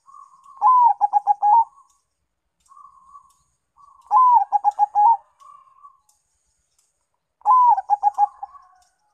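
Caged zebra dove (perkutut), a Bangkok–local cross, singing its cooing song three times, about 3.5 s apart. Each phrase is a drawn-out opening note followed by a quick run of about six short coos, with soft trilling between the phrases.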